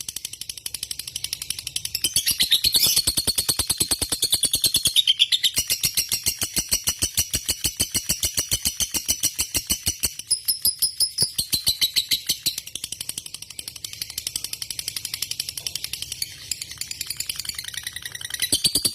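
Lovebird chattering in one long run of rapid, high-pitched notes, many per second, breaking off only briefly a couple of times: the long-duration trill prized in a competition 'fighter' lovebird.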